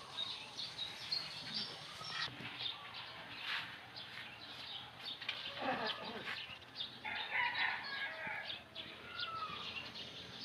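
A rooster crows once, about halfway through, over small birds chirping and scattered light clicks and rustles.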